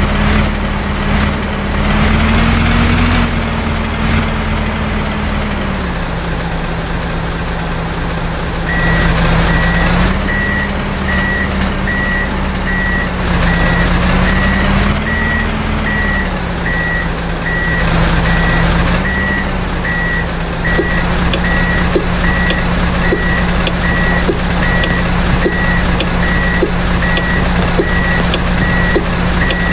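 Heavy diesel engine running, its pitch rising and falling a few times as it revs under load. About nine seconds in, a vehicle reversing alarm starts beeping steadily over it and keeps going.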